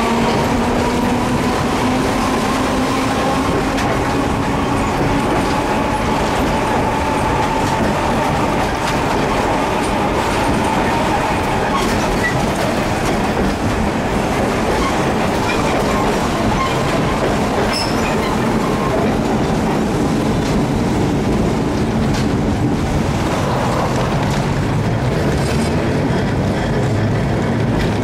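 Hiroden 100-type tram car 101 running on street track, heard from inside the old wooden car: a steady rumble and clatter of wheels on rails, with a faint whine that rises in pitch over the first ten seconds or so as the tram gathers speed.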